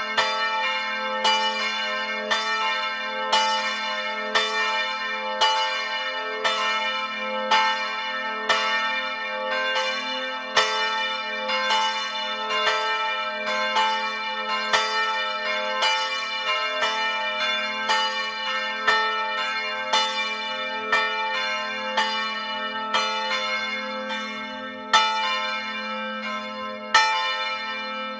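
Several swinging church bells ringing together, heard from inside the belfry close to one of the bells: overlapping clapper strikes about one or two a second over a steady low hum from the ringing bells. Near the end the strikes thin out and a few louder single strikes stand out.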